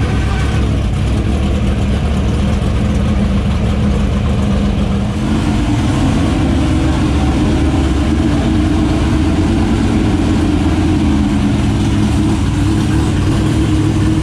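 Dirt super late model race car's V8 racing engine idling with a steady rumble; its sound shifts and grows fuller about five seconds in.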